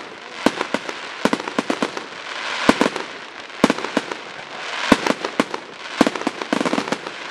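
Aerial fireworks bursting overhead: an irregular string of sharp bangs and cracks, several a second at times, with a hissing wash between them.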